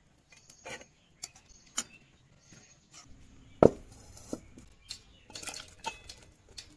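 Steel cookware clinking and knocking as jackfruit pieces are tipped from a steel strainer and bowl, with scattered light clinks and one sharp knock about three and a half seconds in, the loudest sound.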